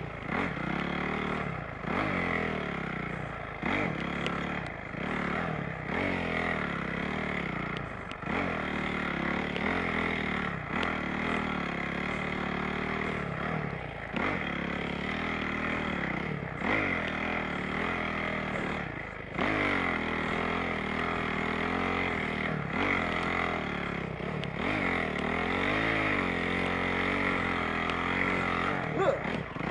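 Honda CRF450R's single-cylinder four-stroke engine revving up and down over and over as the dirt bike works through deep snow, the pitch rising and falling every second or two.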